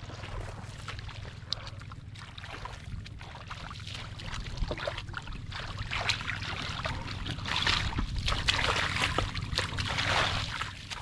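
Irregular splashing and sloshing in shallow muddy water, louder in the second half, over a steady low rumble.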